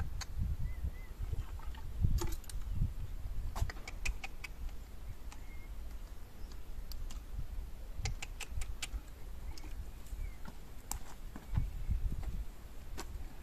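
Scattered metal clinks and light clicks from a horse's snaffle bridle, the bit rings and buckles jingling as it is put on and fastened, over a low rumble.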